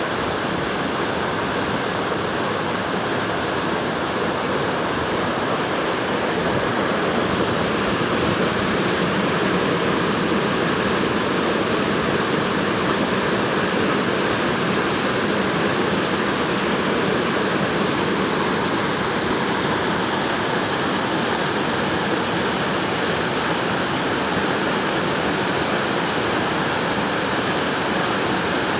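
Rushing water in a canyon, a steady, loud, unbroken rush.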